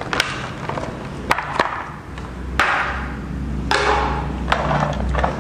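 Plastic blister packaging crinkling and rustling as it is handled, with several sharp clicks and taps and two longer crinkling bursts about halfway through.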